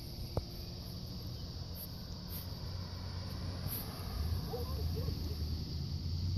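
Outdoor ambience: a steady high insect chirring, with one click about half a second in. A low rumble grows louder over the last couple of seconds.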